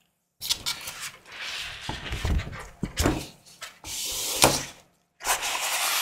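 A large folded paper sheet being unfolded and turned over by hand: crackling rustles broken by several sharp paper snaps, then, about five seconds in, a steady rustle as the sheet is smoothed out.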